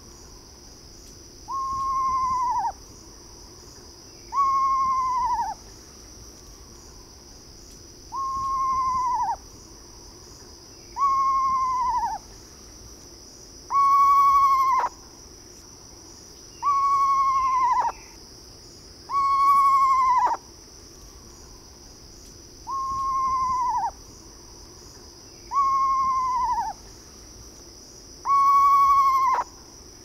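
Eastern screech-owl giving its descending whinny, the territorial call. About ten calls come roughly one every three seconds, each a little over a second long, starting high and sliding down in pitch. A steady, high-pitched insect drone runs underneath.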